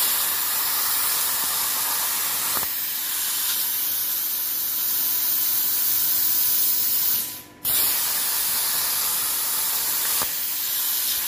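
XP45 plasma cutter on a CNC table, hissing steadily with air and arc as it cuts steel box section. The hiss cuts out for a moment about seven and a half seconds in and starts again as the torch fires for the next cut.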